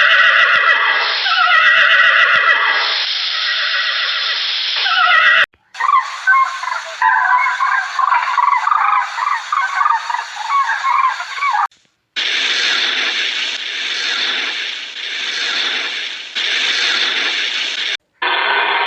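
A series of animal calls in three cut-together clips: first loud calls falling in pitch, then a rapid run of high chattering calls, then a steady rough hissing noise for the last six seconds.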